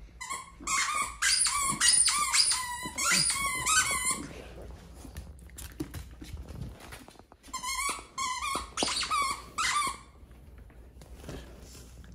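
Squeaker inside a plush duck dog toy squeaking as a terrier bites and chews it: a rapid run of short, high squeaks for about four seconds, then another run about eight seconds in.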